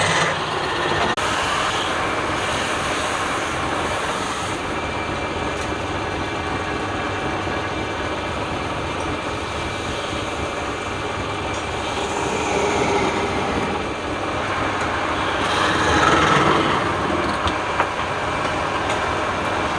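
A power tool working wood: a steady rushing, grinding noise that swells briefly about three-quarters of the way through.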